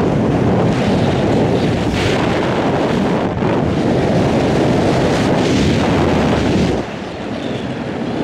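Wind buffeting a camera microphone during a parachute canopy descent: a steady, loud rumble that eases a little near the end.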